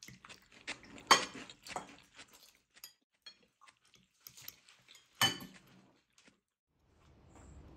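Scattered light clinks and knocks of cutlery and dishes, with two louder clatters about a second in and about five seconds in.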